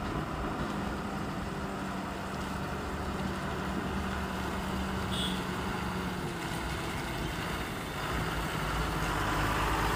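Diesel truck engine running, a steady low hum whose rumble grows louder from about eight seconds in.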